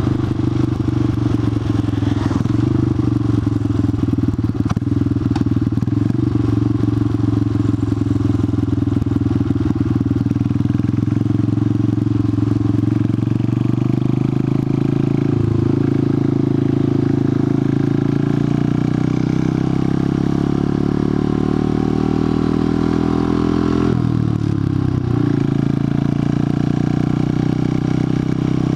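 Buell Blast motorcycle's single-cylinder engine running, steady at first, then revs climbing for about ten seconds. The pitch drops briefly about 24 seconds in, as at a gear change, and then holds steady.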